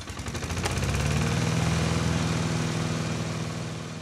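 An engine running with a steady pulsing beat and a slight rise in pitch. It fades in at the start and sinks away near the end.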